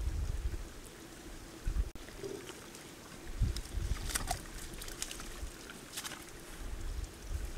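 Sambar stag heaving itself up out of a mud wallow: mud and water sloshing and splashing, with sharp drips and splashes about halfway through as it stands.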